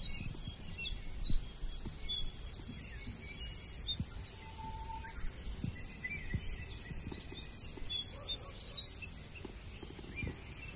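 Birds chirping outdoors: scattered short, high calls over a low background rumble, with a few faint knocks.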